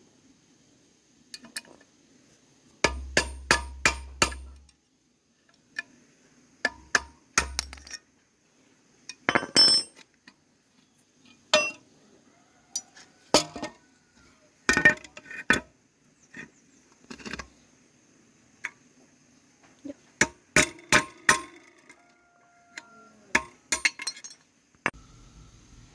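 Metal tools and parts clinking and knocking in short, irregular bursts, with a quick run of about five taps about three seconds in and another cluster near the end.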